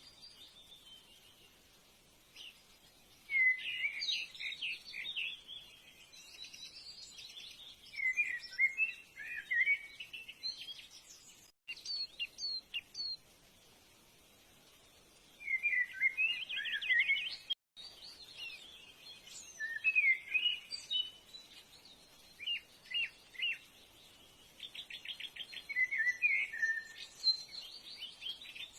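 Birds chirping and singing in short bursts of quick, high trills every few seconds over a faint steady hiss, broken twice by a brief drop to silence.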